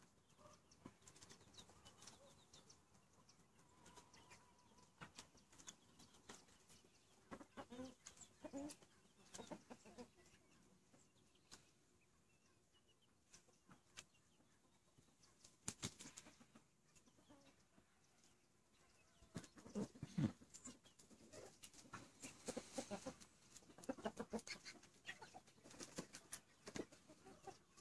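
Faint clucking from Australorp chickens now and then, busiest in the second half, with a few scattered clicks.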